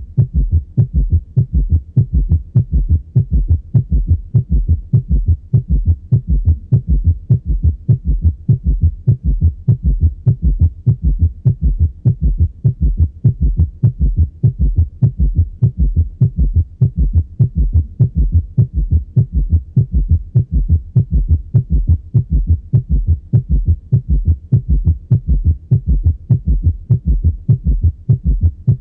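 Heart sounds from a stethoscope recording: a steady, even rhythm of short, low thuds, beat after beat.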